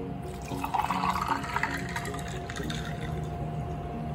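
Liquid pouring from a pitcher into a glass tumbler, a splashing fill that lasts about two seconds from about half a second in.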